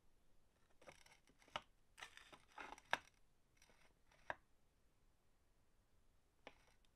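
Quiet, irregular clicks and short scrapes of hand-tool parts being handled on a bench, the metal plane iron of a wooden plane during its regrinding. The sounds are bunched in the first half, with one more click near the end.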